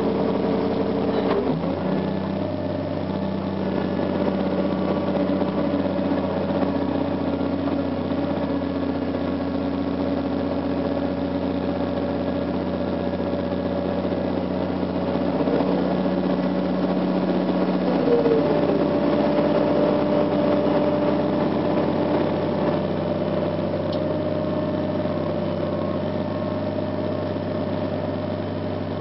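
Caterpillar 345C L excavator's diesel engine running steadily inside the operator's cab while the machine digs and swings, its pitch shifting now and then as the hydraulics are worked.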